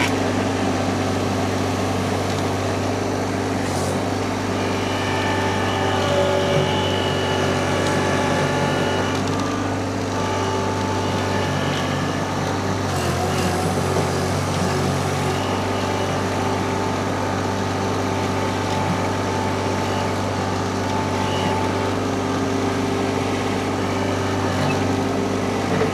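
Mini skid steer engine running steadily under load, with a high hydraulic whine that comes in about five seconds in and fades out about ten seconds later.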